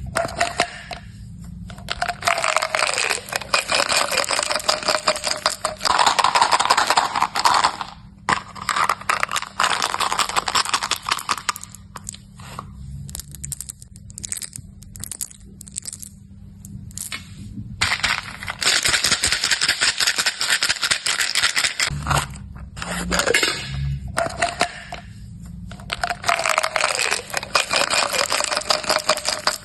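Hard-shelled M&M's candies rattling and clicking as they are poured and handled. Long dense spells of rattling give way to sparser, separate clicks for several seconds in the middle, then dense rattling returns.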